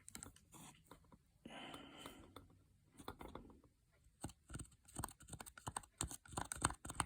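Faint, light clicks and taps from hands-on work at a small circuit board while solder is reflowed. There is a brief soft hiss about a second and a half in, and the clicks come quickly and closely spaced in the second half.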